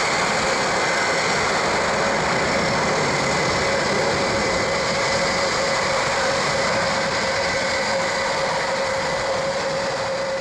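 Turboprop engines of an Airbus A400M running steadily on the ground, a continuous rush of propeller and engine noise with a steady whine over it.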